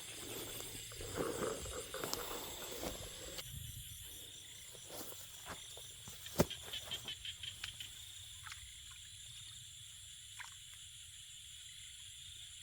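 Steady high-pitched chirring of field insects, with scattered faint rustles and clicks, one sharp click about halfway through and a quick run of ticks just after it.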